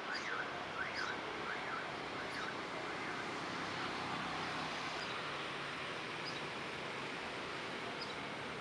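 A bird chirping several times in the first couple of seconds, then a few faint high calls, over a steady outdoor hiss.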